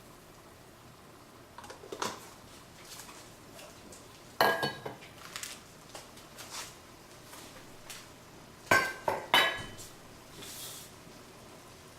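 A utensil clinking and knocking against a cooking pot, with a few scattered ringing clinks; the loudest come about four and a half seconds in and twice close together near nine seconds in.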